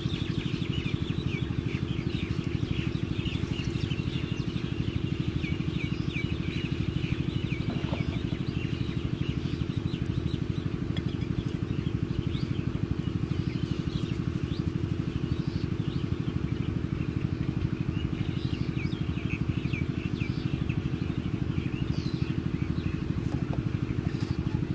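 An engine running steadily with a fast, even pulse, while small birds chirp over it.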